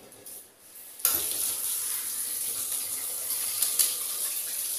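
Water with Maggi noodles simmering in a hot aluminium kadhai, a steady bubbling hiss that starts suddenly about a second in.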